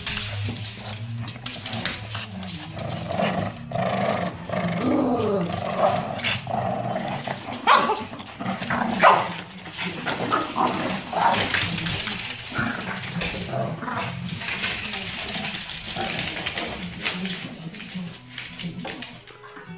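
Shih Tzu growling in play, a low rumble that goes on almost without a break, with a few louder, higher yips in the middle.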